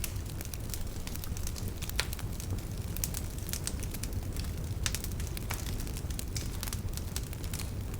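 Fire burning in a fireplace, crackling: irregular sharp pops, several a second, over a steady low rumble.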